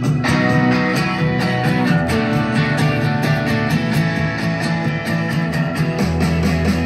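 Guitar-led song with a bass line and a steady beat, played through KLH Model 403A indoor/outdoor speakers.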